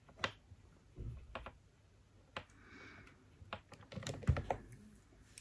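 Light, irregular taps and clicks of makeup being handled: a silicone brush picking up glitter from an eyeshadow palette. A cluster of louder taps comes about four seconds in.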